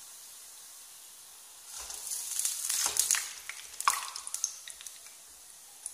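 Urad dal vadas deep-frying in hot oil with a steady sizzle. From about two seconds in, the sizzle grows into a louder crackle with sharp clicks and taps as a perforated metal skimmer scoops the fried vadas out of the oil. It eases back to a softer sizzle near the end.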